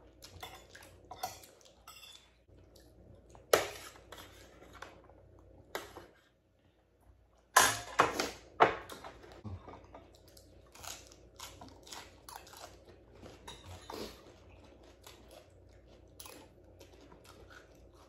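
Eating sounds from a steamed-lobster meal: chewing, with scattered sharp clicks and clatter of cutlery and shell against dishes. The loudest is a quick cluster of clacks about eight seconds in.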